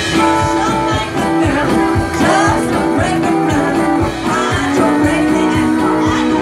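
Live band playing: electric guitars and a drum kit keeping a steady beat, with a woman singing into a microphone and holding long notes.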